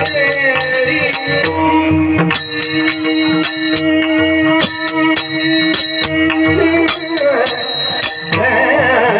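Warkari kirtan music: taal hand cymbals clash in quick, repeated strokes with mridang drum beats over a held drone. Voices sing the closing tune, more plainly near the end.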